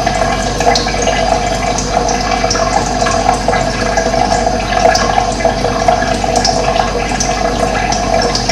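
Running water flowing and splashing steadily, without pauses.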